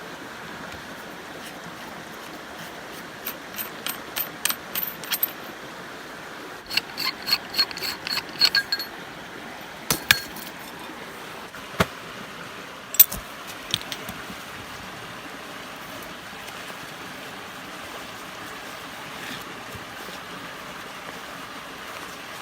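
Light clinking: two runs of quick, sharp taps with a slight ring, then a few single clicks, over a steady hiss.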